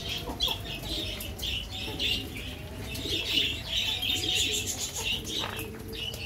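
Pigeons cooing in a loft, with a steady run of short high chirps from birds, about three a second.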